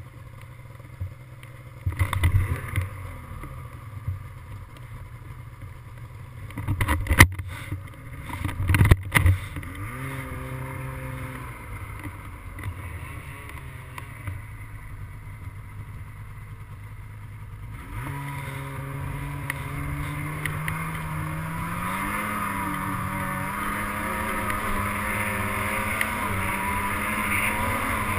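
Snowmobile engine running, with a few loud knocks about seven and nine seconds in. From about two-thirds of the way through, the engine note climbs steadily as it speeds up, with a growing hiss.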